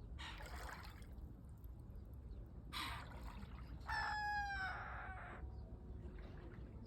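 Rooster crowing once, about three seconds in, ending on a held, slightly falling note. A short burst of rushing noise comes near the start.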